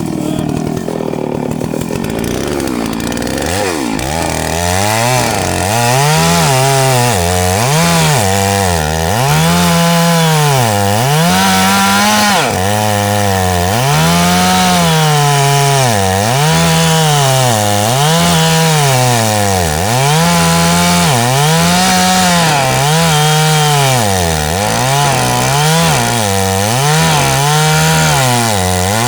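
Chainsaw cutting wood, its engine pitch dropping under load and climbing back about once a second, over and over.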